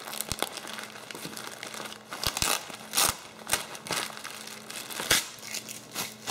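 Bubble wrap and a plastic bag of screws crinkling and rustling as they are unwrapped by hand. Several sharp clicks and crackles stand out, about two to five seconds in.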